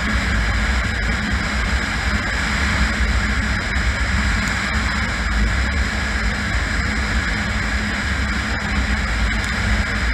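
Kawasaki KLR650's single-cylinder engine running steadily at highway cruising speed, about 55 on the speedometer, with a constant rush of wind and road noise.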